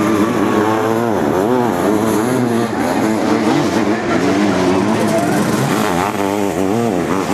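Sidecar motocross outfit engines racing at full throttle, the pitch rising and falling over and over as the riders open and shut the throttle and change gear.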